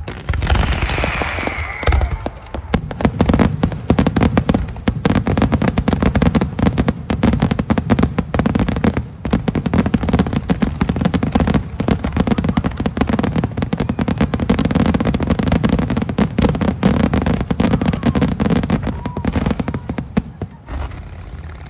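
Aerial fireworks going off in a dense, rapid barrage of booming bursts and crackle that runs almost without pause and thins out near the end. A falling whistle is heard in the first couple of seconds.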